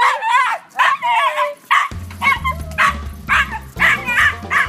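A small Chihuahua yapping over and over in high, whining barks, about two a second. Background music with a steady bass line comes in about two seconds in.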